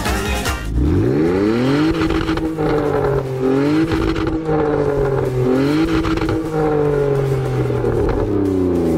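Car engine accelerating through the gears. Its pitch climbs about a second in, dips at two gear changes and climbs again, then falls away near the end as the car slows.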